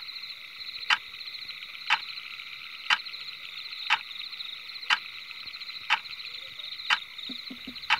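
A dense, steady chorus of calling frogs trilling, with a sharp, loud tick exactly once a second over it.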